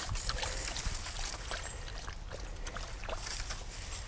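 Water sloshing and splashing from wading through a shallow, muddy creek, with scattered small clicks.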